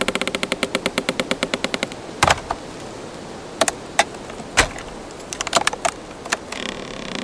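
Wood creaking as a fast run of clicks for about two seconds, then scattered sharp wooden knocks and cracks, one with a low thump, and a short pitched creak near the end, over a steady hiss of background ambience.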